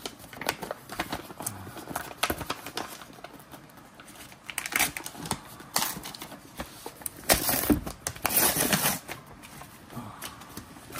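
Paper wrapper being torn and crumpled by hand as it is pulled off a boxed camera, in irregular rustling bursts that are loudest about seven to nine seconds in.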